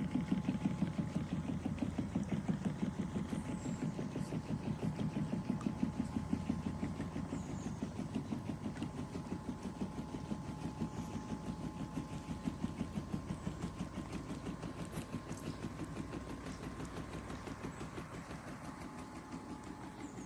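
Automatic suction pool cleaner running with a rapid, even mechanical pulsing over a faint steady hum, easing off a little toward the end.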